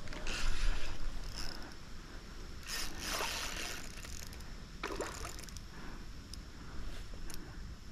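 Hooked chinook salmon thrashing at the surface of a shallow river, splashing in several separate bursts a few seconds apart. The loudest comes just after the start, with others about three and five seconds in.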